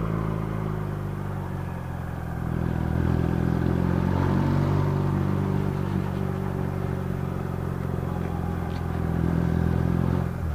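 Motorcycle engine running steadily as the bike rides along, heard from the rider's seat; it gets louder about two and a half seconds in.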